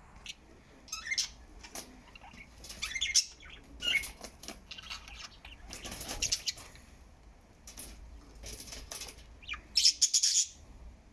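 Pet budgies chattering: a run of short, high chirps and squawky warbles, with a louder burst near the end.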